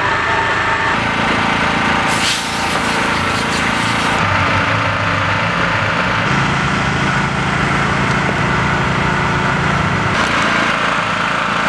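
Rally car engine running at steady high pitch, with a short rush of hiss and a brief dip about two seconds in and a change in its lower note about six seconds in.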